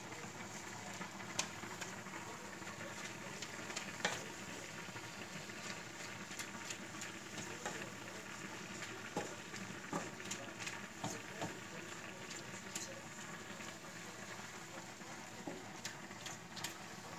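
Minced meat frying in a pan with a steady, quiet sizzle, broken by scattered light clicks and taps as the meat is worked and seasoned in the pan.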